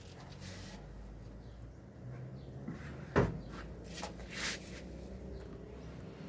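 Handling noise as the washing machine is worked on: a single sharp knock about three seconds in, among quieter scraping and rustling, over a low steady hum.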